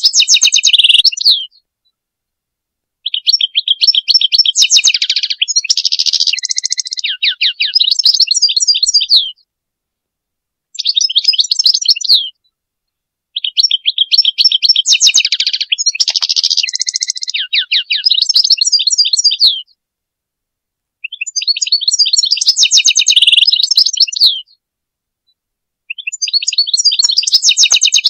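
European goldfinch song: phrases of rapid twittering trills and quick sweeping notes, a few seconds each, broken by short pauses.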